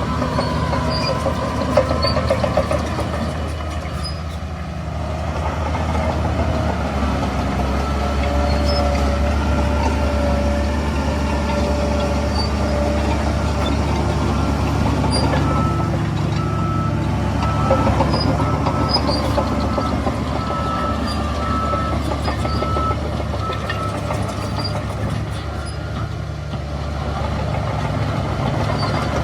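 Heavy diesel earthmoving machinery and dump trucks running steadily, with a reversing alarm beeping repeatedly for several seconds midway.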